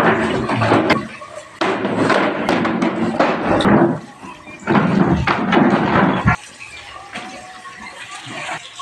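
Plastic monobloc chairs being stacked and carried, knocking and scraping against each other in three loud stretches over the first six seconds, then quieter.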